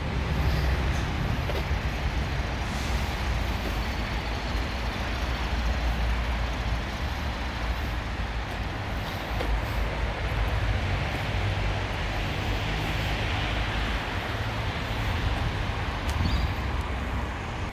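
Steady outdoor background noise: a low rumble with an even hiss over it, like traffic noise, with no distinct events.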